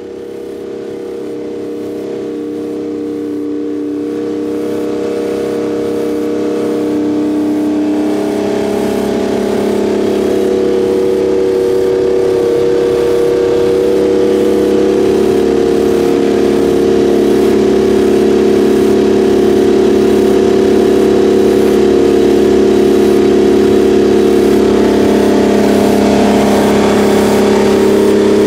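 Detroit Diesel 12V92 V12 two-stroke diesel of the Rite 750 Earthquake tractor, heard from the cab. It builds up over the first eight seconds or so, then runs loud and steady under load.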